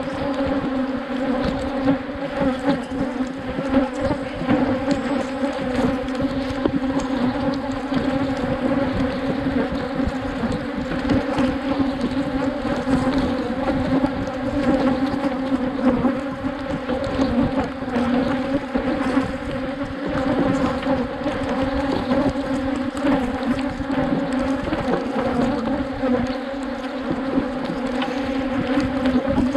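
Many Africanized honeybees buzzing around an open hive as it is worked, a dense, steady hum.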